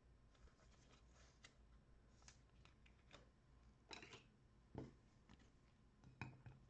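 Quiet, faint handling of trading cards and their cellophane pack wrappers: soft clicks and rustles, with a few louder ones about four, five and six seconds in.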